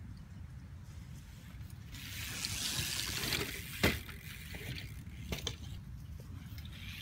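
BMX bike tyres hissing over sandy dirt as the rider comes in, then one sharp impact about four seconds in as the bike hops up onto the metal guardrail, followed by a couple of faint clicks.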